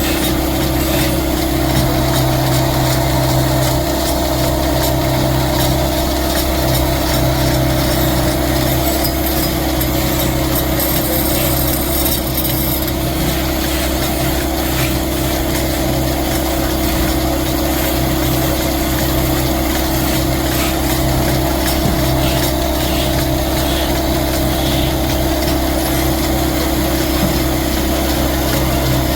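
Steady hum of a machine motor running without change.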